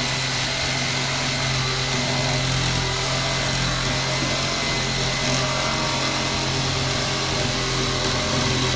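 Corded jigsaw running steadily as it cuts through a sheet of 3/4-inch plywood for the subfloor.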